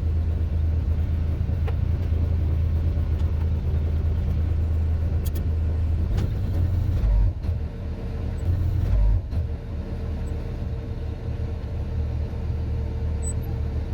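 A boat's inboard engine running with a steady low drone; a faint steady higher tone joins about halfway through.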